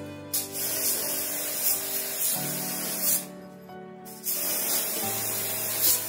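Water jet from a water-wash pump's spray gun hissing against the evaporator coil of a split air conditioner's indoor unit during coil cleaning, in two spells, about three seconds then a second and a half, with a short pause between. Background music plays underneath.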